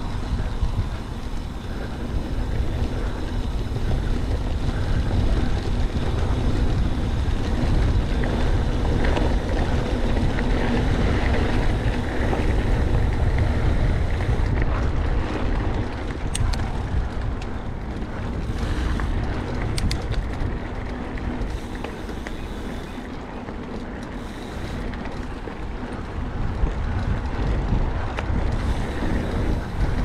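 Wind buffeting the microphone over the steady rumble of a 2018 Trek Fuel EX 7 mountain bike rolling along grass and dirt singletrack. A few sharp clicks come a little past halfway.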